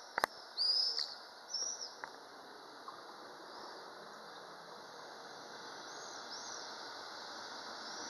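Approaching train: a steady rushing noise that grows slowly louder. Birds chirp in short, arching calls during the first two seconds and again about six seconds in, with a few sharp clicks among the first chirps.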